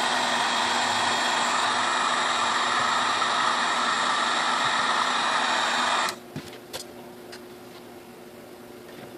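Heat gun blowing steadily, with a faint low hum under the rush of air, switched off abruptly about six seconds in; a few light clicks follow. It is heating the mixer's gearcase to soften hardened grease that locks a part in place.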